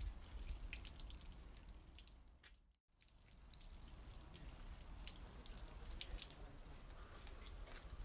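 Faint water trickling and dripping from the metal spouts of a shrine's stone purification basin into its trough, with many small scattered drips. The sound cuts out briefly about three seconds in.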